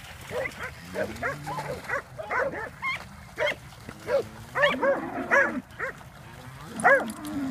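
Catahoula cattle dogs barking repeatedly while working cattle: short sharp barks about two a second, a pause about six seconds in, then a loud bark near the end.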